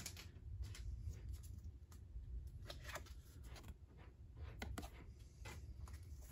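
Faint, scattered clicks and rustles of Pokémon trading cards being handled, over a low steady hum.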